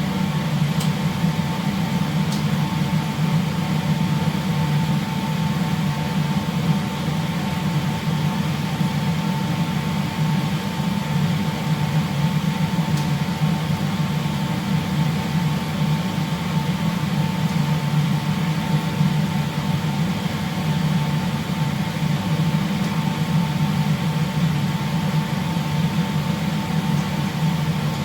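Steady low machinery hum that does not change, with a thin steady whine over it.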